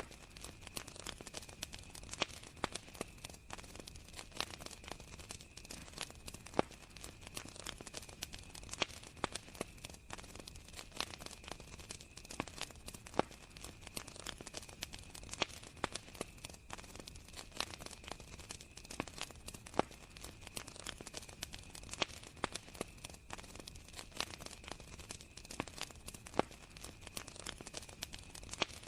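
Wood fire crackling, with irregular sharp pops and snaps, over a steady high-pitched trill of crickets.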